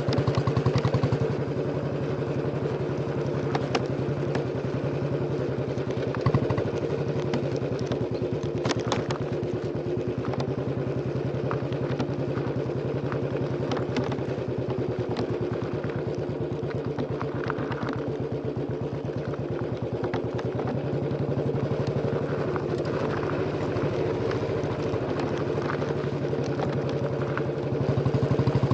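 Royal Enfield Bullet 350's single-cylinder engine thumping steadily through its exhaust while riding. It gets louder for a moment at the start and again near the end, with a few short knocks in between.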